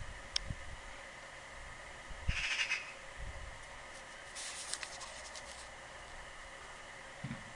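Short bursts of bird calls, one about two and a half seconds in and a higher one about four and a half seconds in, over faint low thumps.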